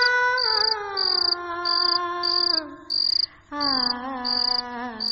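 A woman singing a slow, melodious tune in long held notes that slide slowly downward, with two short breaths between phrases. Under it a cricket chirps steadily, about one and a half times a second.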